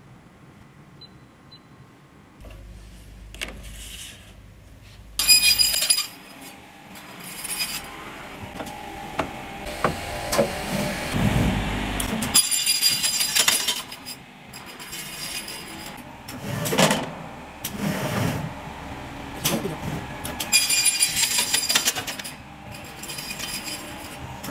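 CNC batten saw working through an automatic cutting cycle: a low motor hum starts, then a series of cuts through strip stock, each a loud burst with a high ringing whine from the blade, with knocks from the machine between cuts.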